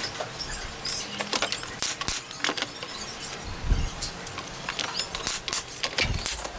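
Thin wooden shingles clicking and knocking as they are handled and set in place on a wooden roof, in irregular light taps, with one louder knock about three and a half seconds in.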